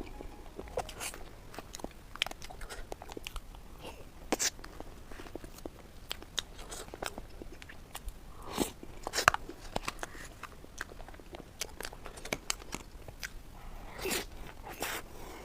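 Close-miked crunching, biting and chewing of a crisp snack roll, with irregular sharp crackles; the loudest crunches come about halfway through and again near the end.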